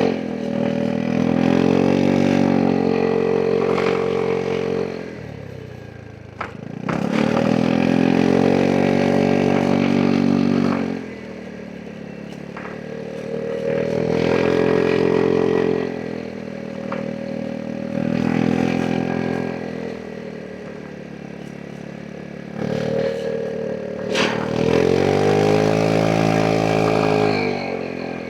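Vespa GTS 300 scooter's single-cylinder engine under repeated bursts of throttle. Its pitch climbs and holds loud, then drops away as the throttle closes, about five times over.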